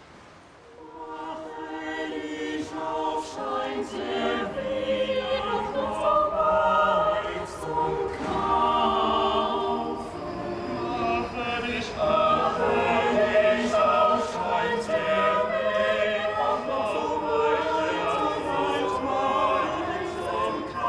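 Mixed choir of men's and women's voices singing held chords; it comes in softly about a second in and swells louder.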